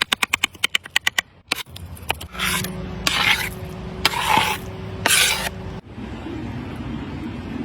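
A quick run of sharp clicks, then four rasping scrapes about a second apart.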